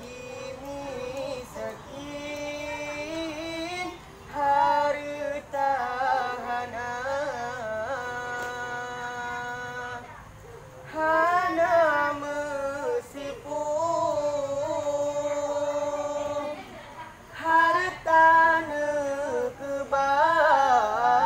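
Children's voices chanting Islamic dhikr together in a slow melodic line, holding and bending long notes, in phrases of a few seconds with short breaks between them.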